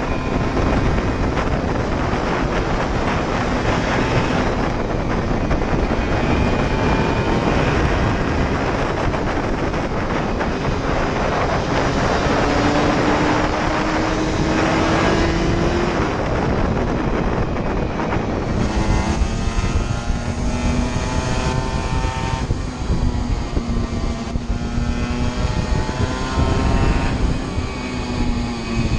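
Aprilia RS125's 125 cc single-cylinder two-stroke engine ridden hard at high revs, heard onboard over heavy wind noise. Its note climbs steadily midway, then rises and falls in shorter pulls near the end.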